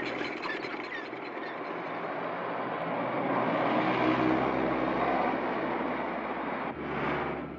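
Small old car's engine running as the car drives along, a steady mechanical noise that changes abruptly about seven seconds in; the car is a Fiat Topolino, dismissed as a jalopy.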